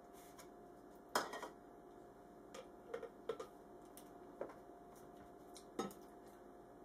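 Scattered light knocks and clicks as a blender jar's lid is pressed into place and a small ceramic bowl is set down on top of it, the sharpest knock about a second in and a quick run of clicks around the middle, over a faint steady hum.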